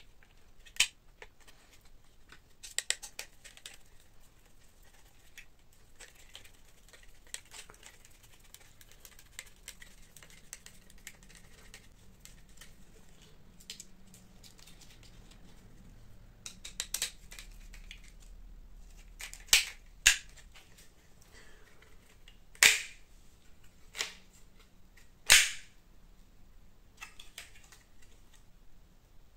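Sharp clicks and knocks of 3D-printed plastic parts, small metal screws and nuts and a screwdriver being handled during assembly, scattered through, with several louder snaps in the second half.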